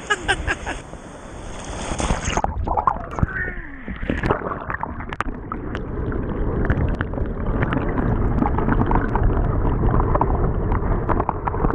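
Shallow ocean surf heard from an action camera dunked under the water: about two seconds in, the open-air sound gives way to a muffled, churning wash of water and stirred sand with scattered clicks and crackles.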